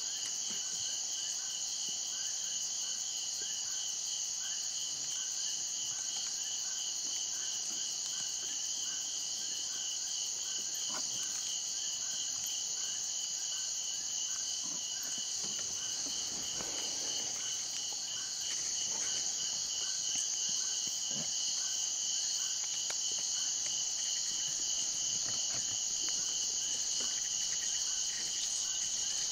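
Night insect chorus of crickets and katydids: a steady high trill over a pulsing mid-high band, with a lower chirp repeating evenly throughout.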